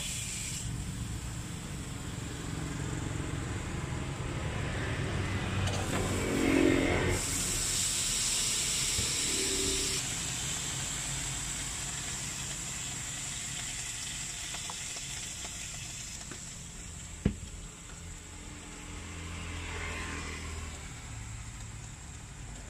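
Road traffic going by with a steady hum, one vehicle passing loudly about six seconds in and another near the end. A single sharp click comes about three quarters of the way through.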